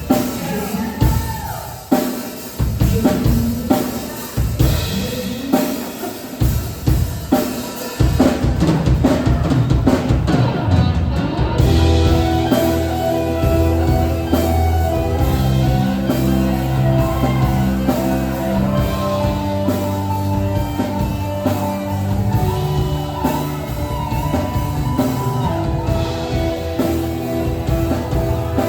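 Instrumental worship band music: a drum kit playing with a bass and keyboard behind it. About eight seconds in it grows fuller and louder as held bass notes and sustained chords come in.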